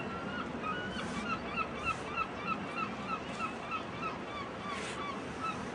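A bird calling in a quick run of short, hooked notes, about three a second, fading near the end, over a steady background hiss.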